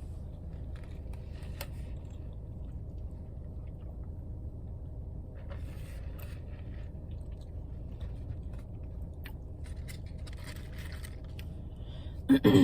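Faint chewing and eating sounds, small clicks and soft rustles, over a steady low hum; a short loud voice sound comes near the end.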